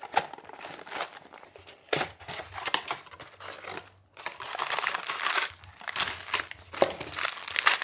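Paper packaging being handled: a small cardboard box slid open and tissue-paper wrapping crinkling and rustling as it is peeled back, in quick irregular crackles. The rustling stops briefly about halfway through, then resumes.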